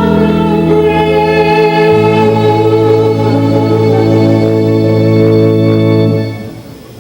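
Music of sustained, organ-like held chords; the bass note shifts about two seconds in and the final chord stops about six seconds in.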